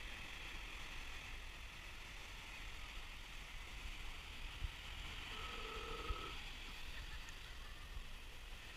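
Steady wash of small waves breaking on a sandy beach, with wind rumbling on the microphone.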